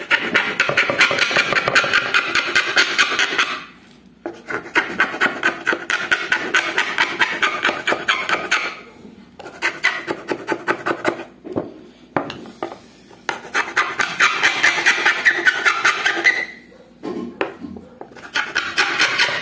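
Hand file rasping on PVC pipe in quick back-and-forth strokes, in about five bouts with short pauses between them. It is widening a cut opening in the pipe that is still too tight for the part meant to fit into it.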